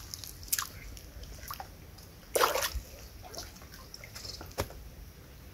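Water splashing and sloshing in a few separate bursts, the loudest about two and a half seconds in.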